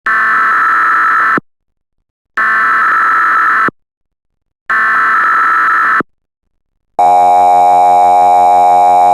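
Emergency Alert System SAME header: three buzzy bursts of digital data tones about a second long, with short silences between them. About seven seconds in, the steady EAS attention tone begins, a harsh two-tone electronic alarm that signals a voice alert message is coming.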